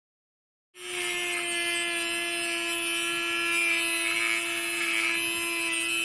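Corded Dremel rotary tool running at a steady high speed, one constant whine that starts abruptly about a second in.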